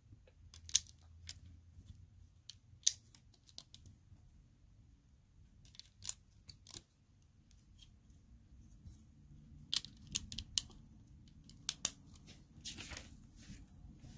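Plastic Lego pieces clicking and snapping together as a model is built: sharp, irregular clicks, some in quick pairs and clusters, with a brief scratchy rustle near the end.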